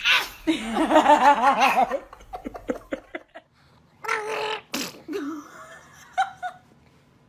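Pulsing laughter for about a second and a half, then a quick run of clicks, and about four seconds in a baby's sneeze: a short voiced intake ending in a sharp burst.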